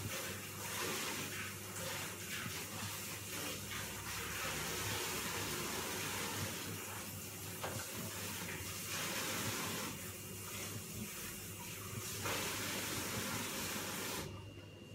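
Water running from a tap, an uneven rushing hiss that shuts off suddenly near the end, over a steady low electrical hum.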